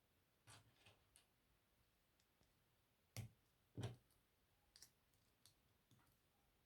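Plastic LEGO pieces clicking and tapping as they are handled and pressed together: scattered light clicks, with two louder knocks about three and four seconds in.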